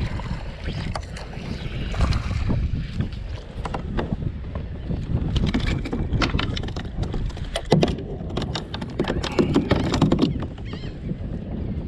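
Wind rumbling on the microphone, with irregular clicks and knocks of gear being handled against a plastic kayak hull; the loudest knock comes about eight seconds in.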